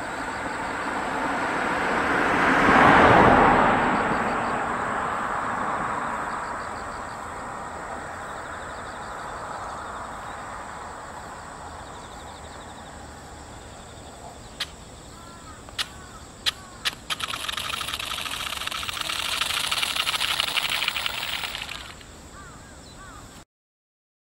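Twin small electric motors and propellers of a toy RC airplane buzzing as it flies past overhead, swelling to a peak about three seconds in and fading slowly. Later come a few sharp clicks, then a louder, harsher buzz for about five seconds that cuts off abruptly.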